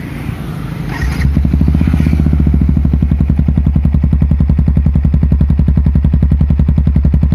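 Yamaha WR 155R single-cylinder engine starting about a second in, then idling steadily with even exhaust pulses through a Daytona GP Taper full-system exhaust.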